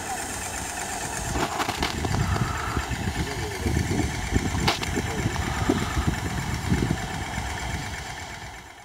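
Paint sprayer's motor running steadily, with irregular low rumbles over it.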